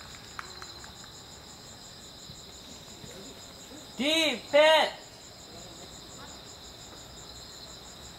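Crickets chirping steadily. About four seconds in, a voice shouts twice, two short calls that rise and fall in pitch.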